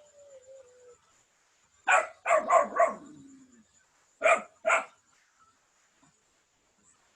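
A dog barking: a quick run of four barks, then two more about two seconds later.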